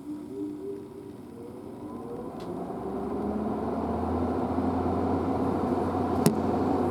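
A motor vehicle's engine and tyre noise growing steadily louder as it approaches, with a single sharp click about six seconds in.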